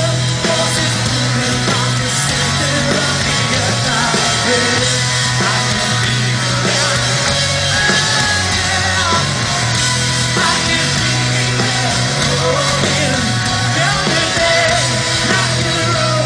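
Live rock band playing loudly and steadily, full band with a sustained low bass.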